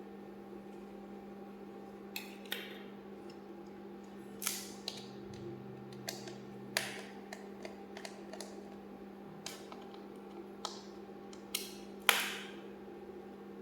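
Irregular sharp clicks and taps of small hard parts being handled, as a laptop RAM module is handled, the loudest about twelve seconds in, over a steady low electrical hum.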